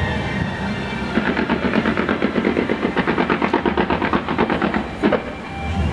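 Aerial fireworks firing: a rapid, even string of sharp pops, about ten a second, from about a second in, then one louder bang about five seconds in.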